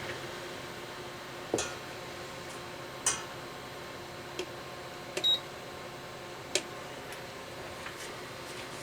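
About five short, sharp clicks and light taps, spaced a second or so apart, over a steady faint hiss.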